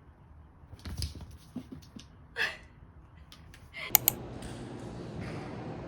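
Scattered clicks and taps, then two sharp clicks about four seconds in, after which a steady mechanical hum sets in.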